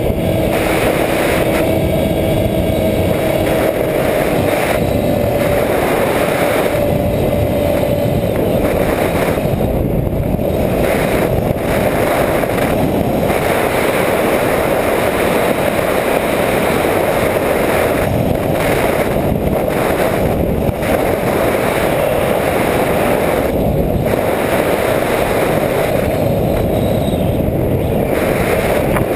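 Steady wind rush on the onboard camera of a Skywalker 1900 RC plane in flight, with the electric motor's faint whine in the first seconds that stops about eight seconds in as the plane glides.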